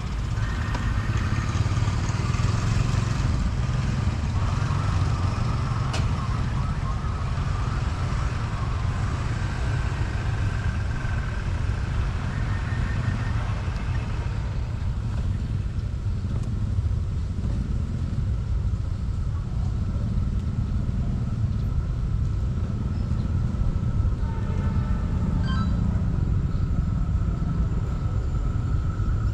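A railway level-crossing warning siren sounds over a steady rumble of road vehicle engines. The siren's tone has sagged low and sounds droopy and comical.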